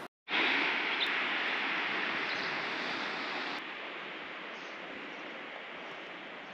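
Steady outdoor rushing hiss with no distinct events. It drops out for an instant at the start, is loudest over the next three seconds, then falls to a softer hiss about three and a half seconds in.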